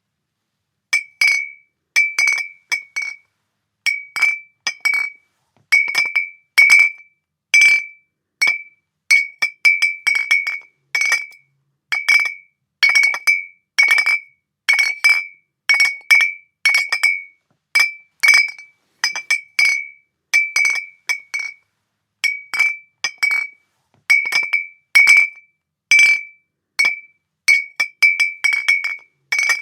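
Glass bottles clinking, each strike ringing briefly at the same high pitch. The clinks come at an uneven pace, singly or in quick doubles and triples, with silence between.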